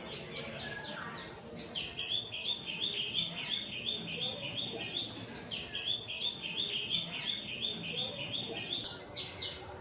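Birds singing: one bird repeats a quick run of short chirping notes, about three a second, in two bouts of about three seconds each, while other birds chirp higher over it and a faint insect-like hum runs underneath.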